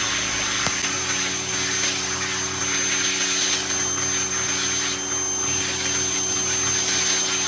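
Pressure washer running steadily: a motor hum with the hiss of the water jet spraying.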